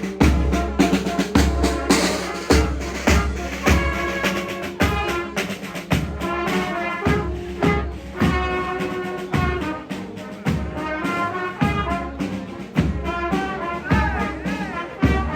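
Brass and drum band playing, with trumpets over regular bass-drum beats.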